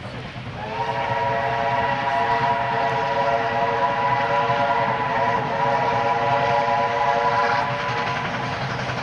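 Steam locomotive whistle blowing one long blast of about seven seconds, starting about half a second in and cutting off near the end, over a low rumble.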